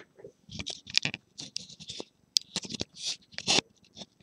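Hands rubbing and handling the plastic casing of a Dell Inspiron N7010 laptop: a series of short, irregular scratching and scuffing sounds.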